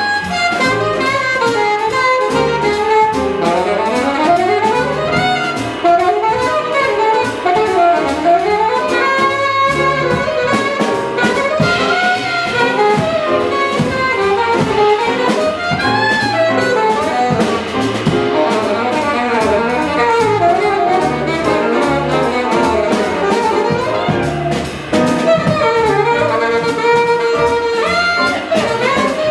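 Alto saxophone soloing in quick, swooping runs over a live jazz rhythm section of piano, upright bass and drum kit with ride cymbal.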